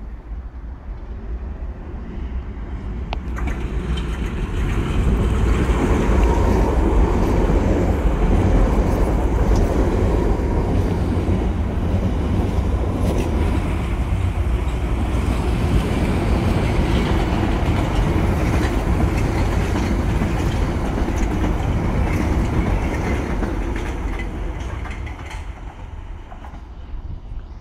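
London Underground Piccadilly line 1973 Stock tube train running through the station without stopping. The rumble of wheels on rails grows over the first few seconds and holds loud with clickety-clack from the rail joints. It fades as the train pulls away near the end.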